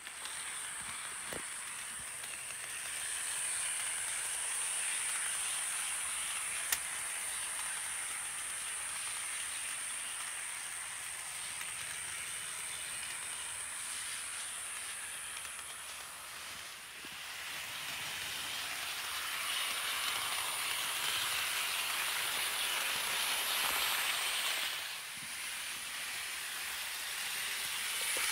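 Motor and gearing of a brass Katsumi (KTM) C62 HO-scale model steam locomotive whirring as it runs along the track. A steady high whine sits over a hiss of wheels on rail, swelling and dipping as the model moves. There is a single sharp click about seven seconds in.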